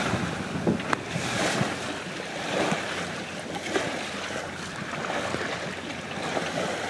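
Bow wave rushing and splashing along the hull of a MacGregor 22 sailboat under sail, with wind buffeting the microphone. A short knock about a second in.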